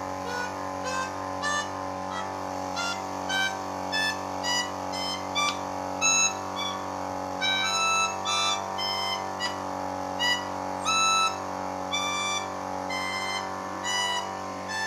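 Melodica played one key at a time: short separate reedy notes, about one or two a second, sounded by air fed in through a hose instead of by mouth, over a steady low hum.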